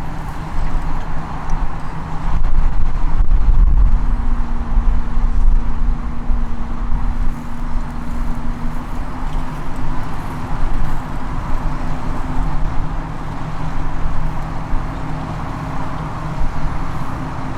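Tractor engine running steadily, as when pulling a plough. A deep rumble swells louder for a few seconds near the start.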